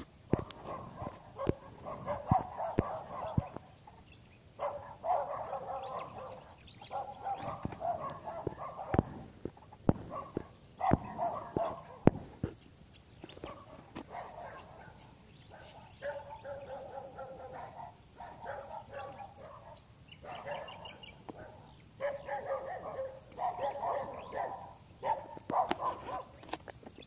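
Dogs barking in repeated bouts of a second or two each, with sharp short taps scattered throughout.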